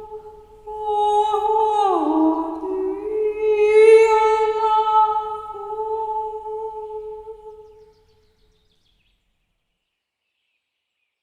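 A woman's wordless vocal toning: long held notes that slide down in pitch about two seconds in, then hold and fade, stopping about eight seconds in.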